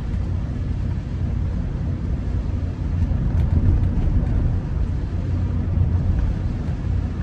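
Inside the cabin of a Rolls-Royce Silver Spirit driving on wet roads: a steady low rumble of engine and tyres with a haze of road noise.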